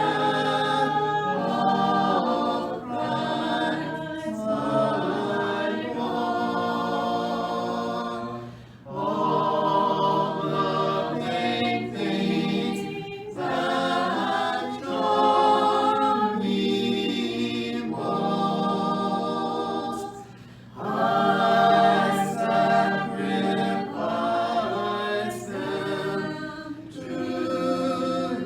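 Several voices singing a slow hymn a cappella in parts, with short breaks between phrases about 9 and 20 seconds in.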